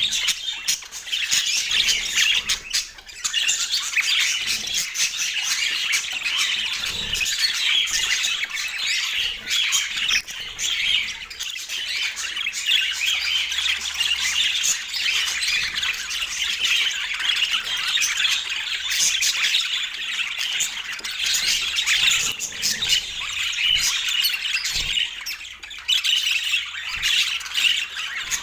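Budgerigars chattering and warbling without a break, a dense stream of rapid squawks, clicks and chirps.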